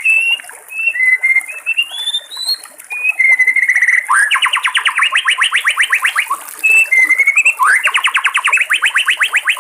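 White-rumped shama singing: loud, clear whistled phrases and glides, then two long, fast trills of evenly repeated sweeping notes, about nine a second. One trill comes midway and the other starts near the end.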